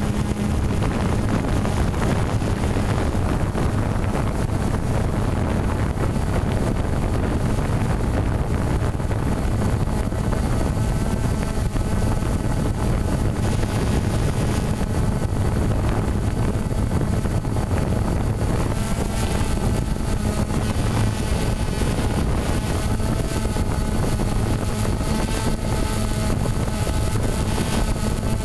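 Quadcopter drone's electric motors and propellers running steadily, heard through its own on-board camera, with a low hum, a rushing hiss and some wind noise on the microphone. A thin whine of several tones above the hum grows more distinct about halfway through.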